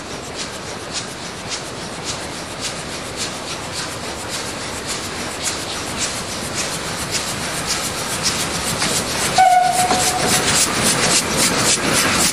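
Narrow-gauge 2-6-0+0-6-2 Garratt steam locomotive G42 working along under steam, its exhaust chuffing about twice a second and growing louder as it approaches. Near the end its whistle gives one short blast.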